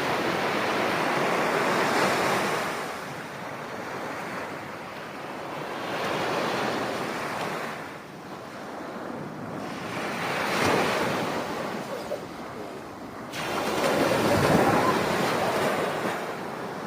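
Ocean surf rushing in swells that rise and ease every few seconds, with wind on the microphone.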